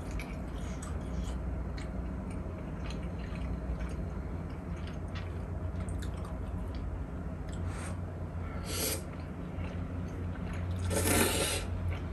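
Close-up eating sounds: small wet mouth and chopstick clicks, then two slurps of noodles, a short one about nine seconds in and a louder, longer one near the end.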